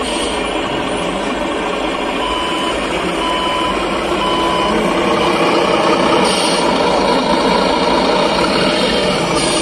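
Three short reversing-alarm beeps from a miniature RC cargo truck's sound module, over steady engine-like running noise. Two brief hisses come later.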